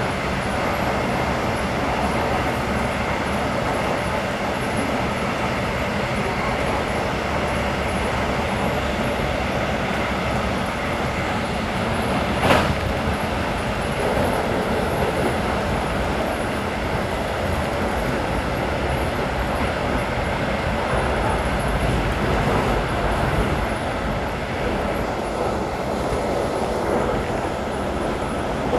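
Alex regional train running along the track, heard from inside its rear end: a steady rolling rumble of wheels on rails, with one sharp knock about twelve seconds in.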